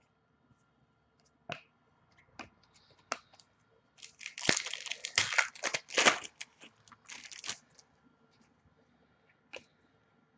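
A foil trading-card pack wrapper is torn open and crinkled: about four seconds in come three and a half seconds of sharp tearing and crackling. Before and after it, a few light clicks of cards being handled.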